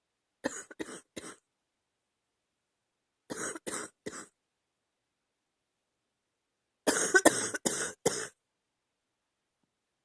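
A woman's chesty cough, in three bouts of short coughs a few seconds apart: about three coughs, then three, then a louder run of about five.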